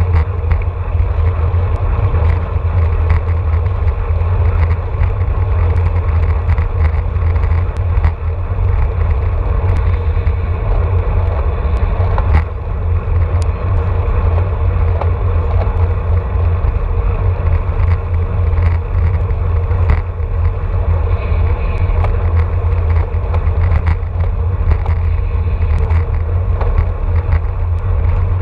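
Wind rushing over the microphone of a handlebar-mounted action camera on a road bike riding at about 23 to 26 mph. It is a loud, steady low rumble with scattered faint clicks.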